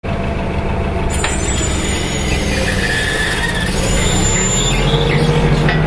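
Forklift engine running under load while it lifts a heavy block on a chain hook slung from a fork-mounted lifting jib. A thin high whine sits over the steady rumble, and the engine note rises near the end.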